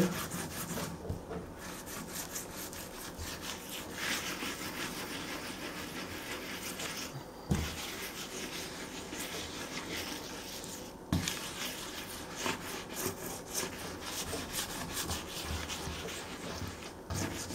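Half a lemon scrubbing coarse kosher salt into an end-grain wooden cutting board: a continuous rubbing, with two brief knocks about seven and eleven seconds in.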